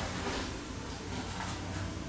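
Quiet room tone with a steady low hum, and faint soft sounds of a person shifting onto hands and knees on an exercise mat.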